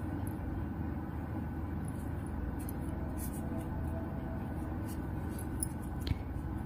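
Steady low room hum, with a few faint soft ticks from a crochet hook and yarn being worked by hand.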